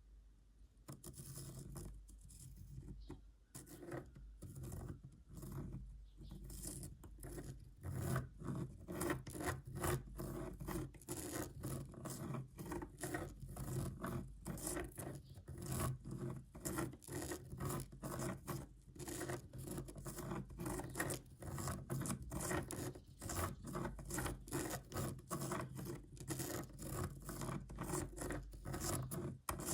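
A pen scratching across paper as it traces a spirograph pattern, in quick repeated strokes that start about a second in and go on steadily.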